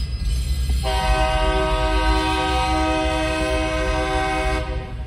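EMD GP38-2 diesel locomotive sounding its multi-chime air horn in one long held chord of several notes, starting about a second in and cutting off near the end, a warning at the grade crossing. Under it is the low rumble of the passing train.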